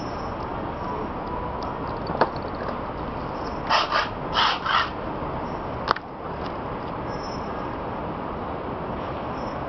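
Steady outdoor city street noise, broken near the middle by four short harsh bursts in two quick pairs, with a sharp click before them and another after.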